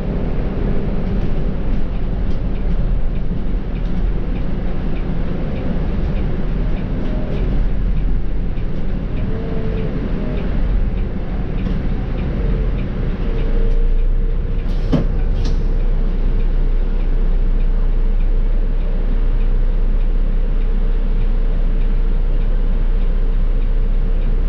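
Volvo B7R bus's six-cylinder diesel engine and ZF EcoLife automatic drivetrain running on the move, a steady heavy rumble with a steady hum setting in about halfway. Two sharp knocks, half a second apart, come a little past the middle.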